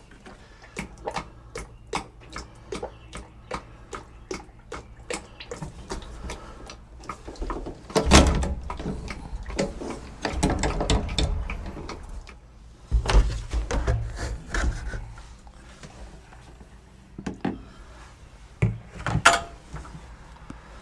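Scattered clicks and clunks of containers being handled while fluid is poured into the rear end of a 1975 Ford 550 backhoe, with a few louder low thuds and rumbles.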